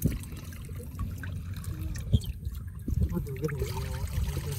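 Water trickling and dripping from a wet net fish trap as live fish are shaken out of it into a bucket, with a single knock about two seconds in.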